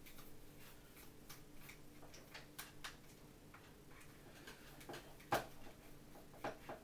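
Faint irregular clicks and ticks of a screwdriver turning screws out of a plasma cutter torch handle, with a sharper click about five seconds in and a couple more near the end.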